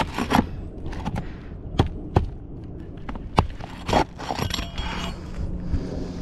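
Irregular sharp knocks and clicks of hard objects being handled, a few of them louder, over a steady low hum.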